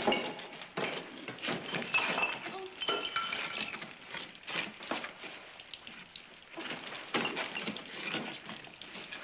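Clattering and knocking of broken boards and rubble being shifted by hand, with a brief wavering high sound about three seconds in.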